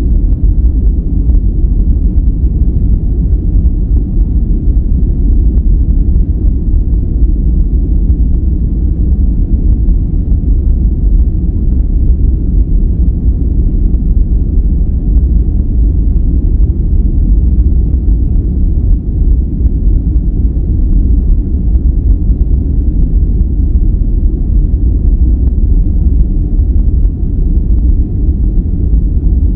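Continuous relaxation noise track: a steady, loud, deep rumbling hiss with nearly all of its weight in the bass and little treble, closer to brown noise than to true white noise.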